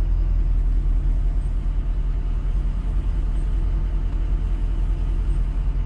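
Ford Mustang GT's 5.0 V8 with a Corsa Extreme exhaust idling with a steady, deep rumble, heard from inside the cabin.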